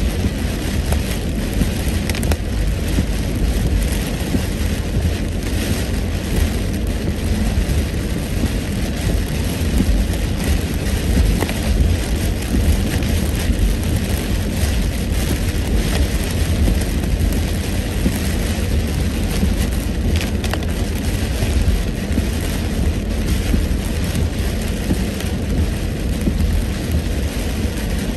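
Heavy rain beating on a moving car, with tyres hissing on the flooded road, heard from inside the cabin over a steady low rumble.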